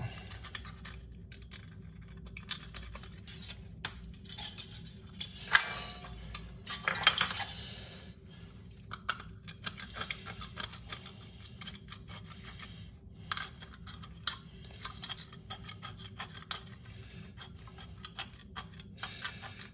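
Thin aluminium drink cans being cut and trimmed with a Leatherman Wave multitool: scattered sharp clicks and snips with a few short scraping rasps, the loudest about five and a half and seven seconds in.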